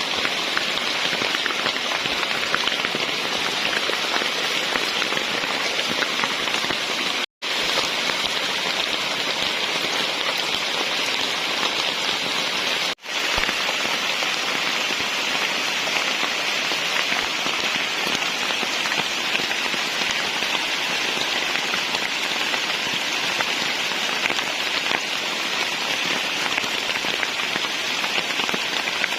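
Heavy tropical rain falling steadily in a forest, an even hiss of dense drops. The sound drops out for an instant twice, around seven and thirteen seconds in.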